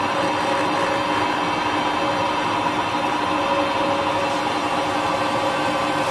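Harrison 140 centre lathe running at speed, a steady whine of several tones from its geared headstock, while a 45-degree carbide tool cuts a chamfer on a steel impact socket, throwing off chips near the end.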